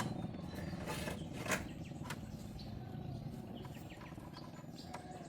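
A low rumble that slowly fades, with a few sharp knocks in the first couple of seconds and faint bird chirps.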